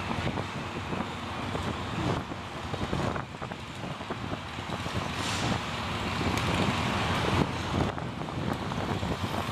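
Wind buffeting the microphone, a gusty rumble that rises and falls over a steady outdoor background.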